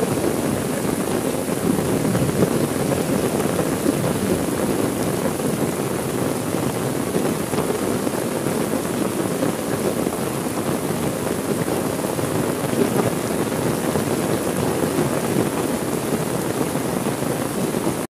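Heavy rain falling, a steady, even rushing noise with a low, full body.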